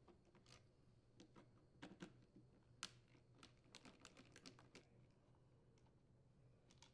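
Faint, irregular clicks and ticks of a hand screwdriver backing screws out of a Ryobi hedge trimmer's plastic handle housing.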